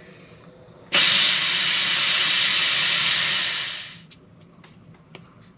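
Handheld steamer giving a burst of steam, a loud even hiss that starts abruptly about a second in and tapers off about three seconds later. It is heating the crushed EPO foam nose so that it softens and can be pushed back into shape.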